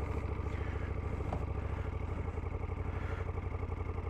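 KTM adventure motorcycle engine idling steadily with an even, rapid pulse, freshly started.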